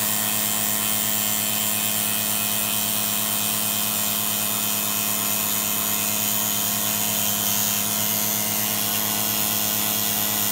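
Small handheld electric power tool running steadily at a constant speed against the corroded metal around the water pump of a 302 V8.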